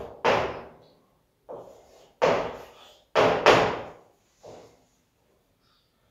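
Chalk writing on a blackboard: about six separate strokes, each a sharp tap of the chalk against the board that fades over about half a second.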